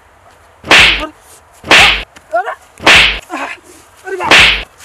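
Four loud whip-crack hit sound effects about a second apart, dubbed over blows with a sandal, with short cries between them.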